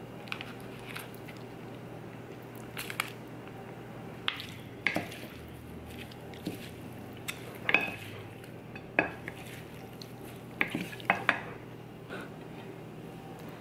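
Two wooden spoons tossing a chopped nopal cactus salad in a ceramic platter: irregular clacks and scrapes of wood against the plate.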